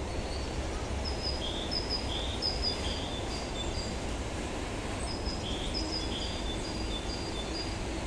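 Small songbird calling in short high notes that alternate high and low, in two bouts with a pause between, over a steady low background rumble.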